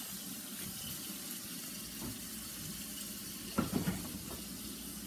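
Kitchen faucet running steadily into the sink, left on so the water runs hot. A few clunks about three and a half seconds in.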